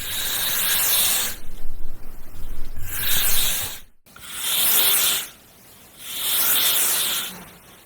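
A series of hissing scrape or rub strokes, each about a second long with short pauses between; the second is rougher and more uneven.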